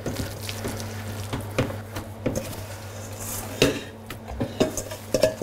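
Stainless steel bowl and utensil knocking and clinking against a steel counter, a sharp knock about every second, as minced-meat filling is scooped out and dropped onto cabbage leaves. A steady low hum runs underneath.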